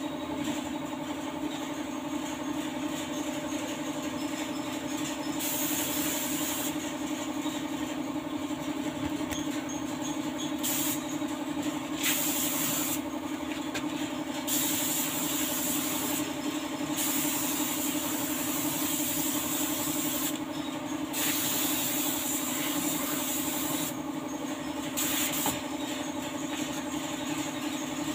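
Paint spray gun hissing in repeated bursts as its trigger is pulled and released, spraying clear coat onto a car's door jambs, over a steady low hum.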